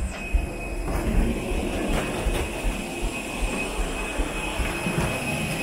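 Steady machine noise at an airliner's boarding door: a low rumble with a thin, steady high-pitched whine, and a few knocks of footsteps on the jet-bridge floor.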